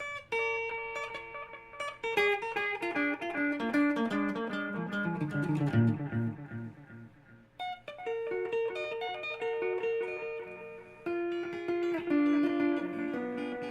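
Guitar played through a Caline Ghost Rain reverb-delay pedal: single picked notes and a falling run, each note leaving a lingering reverb-delay trail that the player likens to digital crickets or frogs. New phrases start twice more, about eight and eleven seconds in.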